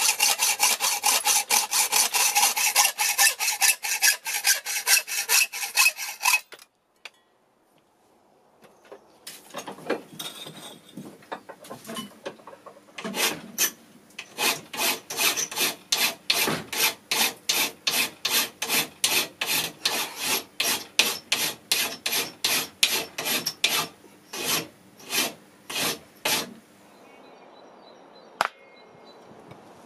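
Hacksaw cutting steel held in a bench vise, quick even strokes about three a second; after a short break, a hand file rasping on the steel in steady strokes about two a second. A single sharp hammer tap near the end.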